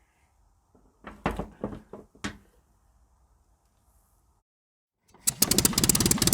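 A few sharp knocks of parts being handled, then, about five seconds in, the GMC CCKW truck's straight-six engine comes in running with a rapid, even beat.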